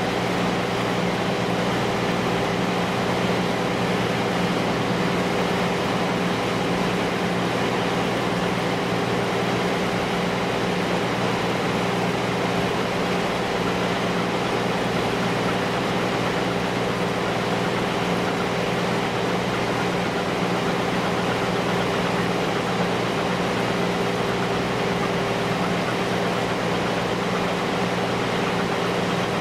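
Gut ship's marine diesel engine running steadily, an unchanging low hum with no change in pitch.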